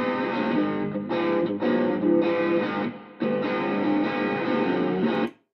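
1960 Fender Stratocaster electric guitar played through a Cornerstone Imperium drive pedal, overdriven chords and riffs, heard played back over speakers into a microphone. The tone is thin and very trebly. It dips briefly about three seconds in and breaks off suddenly just before the end.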